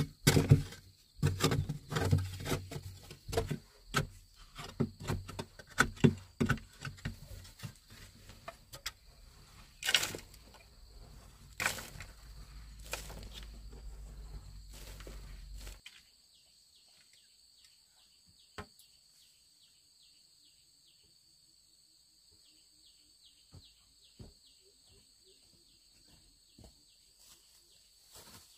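A digging tool striking and scraping packed earth in a narrow earth tunnel, making irregular thuds and scrapes for the first fifteen seconds or so. The sound then drops to much quieter insects chirping steadily, with a few faint taps.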